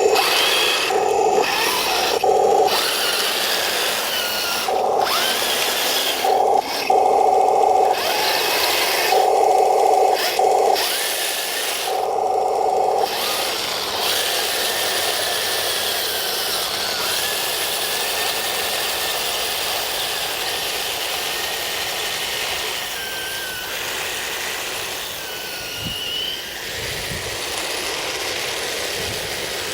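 Radio-controlled M26 tank on metal tracks driving: its electric drive motors and gearboxes whine in repeated on-off bursts over the first dozen seconds, then run more steadily, their pitch slowly shifting.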